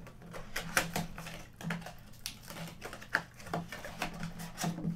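Panini Mosaic basketball blaster box of cardboard being torn open by hand: a string of sharp, irregular clicks and tearing as the perforated flap is popped and pulled back.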